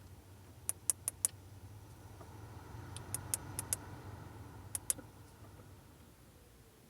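Sharp, high-pitched ticks from the dashboard of a 2002 Audi A4 B6, coming in short irregular clusters: four quick ticks about a second in, five more around three seconds, and two near five seconds, over a low steady hum. It is an unexplained noise from the dash area.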